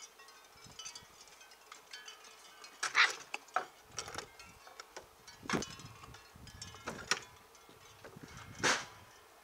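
Puppies jostling a wire exercise pen and a steel food bowl: several sharp metallic clinks and rattles at irregular times, the loudest about three seconds in.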